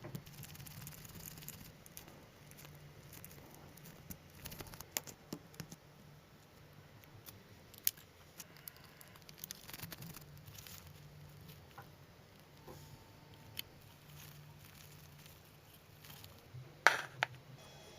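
Scattered small clicks, taps and scrapes of hand work, with a sharper, louder click near the end, over a faint low steady hum.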